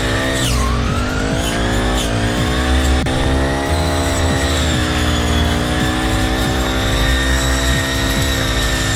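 Engine of a grass-cutting machine running steadily at speed. Its pitch dips sharply about half a second in, recovers within a second, and sags again more gently around five to six seconds in, as if taking load.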